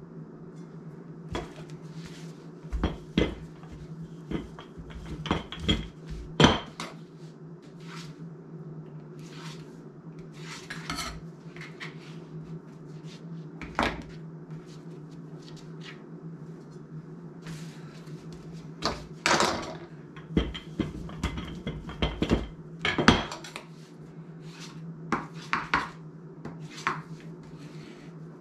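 A kitchen knife tapping and scraping on a plastic cutting mat as it cuts biscuit dough into strips, with scattered clicks and knocks as the pieces are handled and set on a plate. A steady low hum runs underneath.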